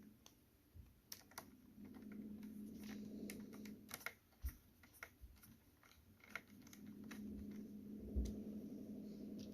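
Small sharp clicks and light taps of a precision screwdriver driving screws into a laptop's plastic bottom panel. A low steady hum swells twice beneath them.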